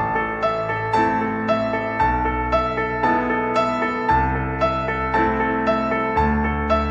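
Background music: a gentle piano melody of evenly struck notes, about two a second, over sustained low bass notes that change every couple of seconds.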